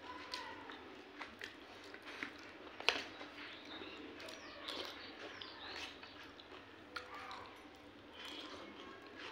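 A metal spoon scraping and clinking in a steel bowl of samosa matar, with a few sharp clinks, the loudest about three seconds in, and eating sounds as a spoonful goes into the mouth near the end. Birds chirp faintly in the background.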